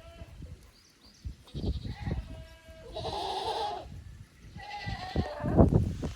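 Goats bleating, with a long bleat about three seconds in and a shorter one near five seconds. Gusts of wind rumble loudly on the microphone near the end.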